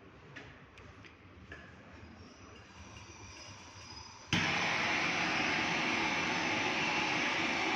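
Brazing torch lit with a sudden pop about four seconds in, then a loud, steady rushing hiss of the flame, used to braze a joint on the fridge's refrigerant pipe. Before it, a few faint clicks.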